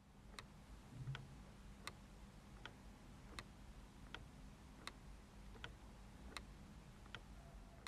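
Faint, steady ticking of a mechanical pendulum clock: a tick-tock about every three quarters of a second, the beats alternating louder and softer, over a low hum.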